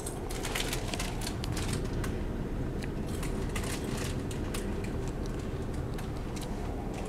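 Light clicks and ticks, many and irregular, over a steady low hum.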